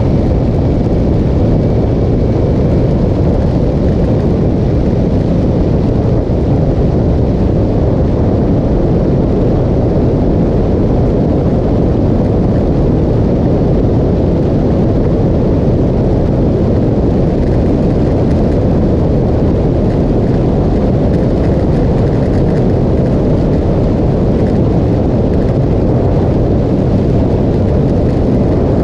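Motorcycle riding at a steady road speed, heard mostly as loud, steady wind rumble buffeting the microphone of the bike-mounted camera.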